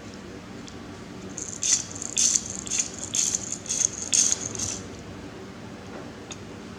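Something small and hard rattling as it is shaken, in about seven quick shakes over three seconds.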